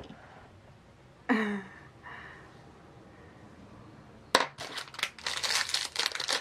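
A short exclamation-like voice sound about a second in. From about four seconds in, a sharp click and then dense crinkling and rustling of packaging as the box's makeup items, including brushes, are handled and unwrapped.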